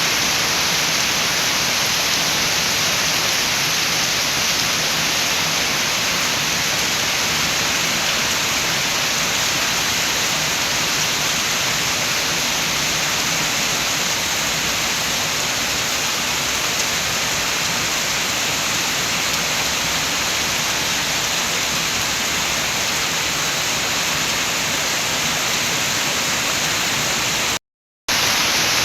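Steady, dense rain with wind, heard as an even hiss, with a brief total cut-out for about half a second near the end.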